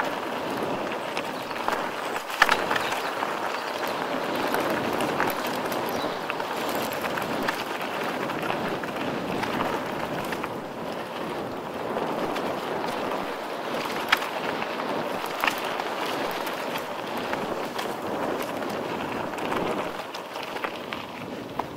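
Mountain bike rolling fast down a rough trail: steady tyre-on-dirt noise with constant rattling and a few sharp knocks from the bike, the loudest about two seconds in.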